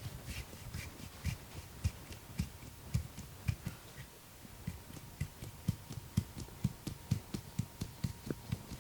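Hands patting and slapping in a percussive Indian head massage: uneven dull thumps about two to three a second, many with a sharper slap on top.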